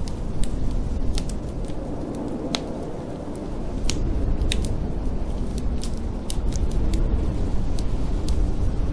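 Wood fire crackling in a fireplace, with sharp pops scattered irregularly through, over a steady low noise of storm wind.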